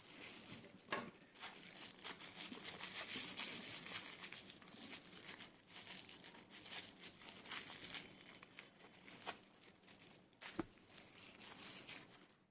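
Faint rustling and small clicks of hands handling a Boya BY-M1 lavalier microphone, loosening its battery compartment to fit a button cell, with one sharper click near the end.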